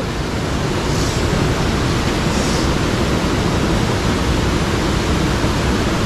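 Mountain stream water rushing, a steady, even wash of noise.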